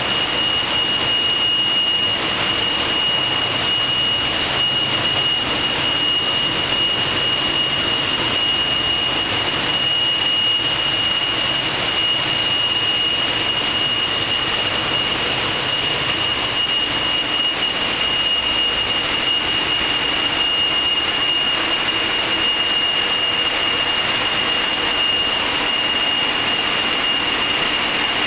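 Loud, steady din of a ship's engine room: the slow-speed main diesel engine of roughly 6,000 hp and its auxiliary machinery running, with a steady high whine over the noise.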